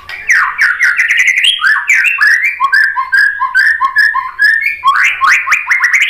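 White-rumped shama (murai batu) in full song: a fast, continuous run of clear whistled notes, opening with a rapid rattling series, settling into a quick repeated two-note phrase, then speeding up again near the end.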